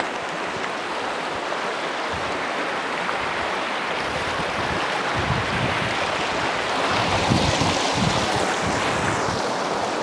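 A woodland stream at full flow after weeks of rain, rushing steadily over a stony bed, with a few low bumps a little past halfway.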